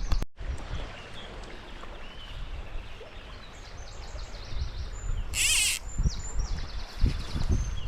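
Wind rumbling on the microphone while small birds sing in bursts of quick, repeated high notes, with one short, loud, warbling call about five seconds in.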